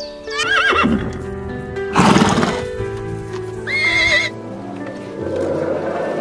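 Horse whinnying twice in short quavering calls, with a loud breathy blast between them, over background music.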